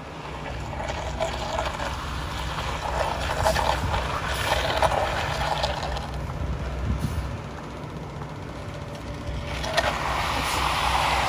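A ready-mix concrete truck's diesel engine running steadily, with the swish and scrape of a bull float being worked across a freshly poured, wet concrete slab, swelling twice, the second time near the end.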